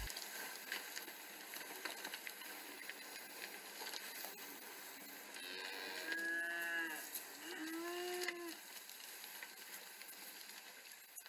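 Cows mooing twice, a little past halfway through, over a faint steady hiss with scattered clicks.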